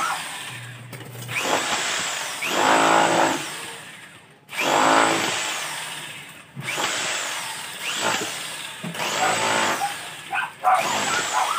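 Electric drill run in short trigger bursts, about seven of them, each starting loud and winding down with falling pitch.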